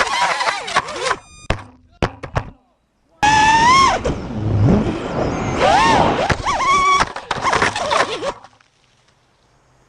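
FPV racing drone motors whining, their pitch swinging up and down with the throttle, with a few sharp knocks about a second and a half in, then a brief gap. The whine returns, then cuts off about eight and a half seconds in, leaving a faint hum.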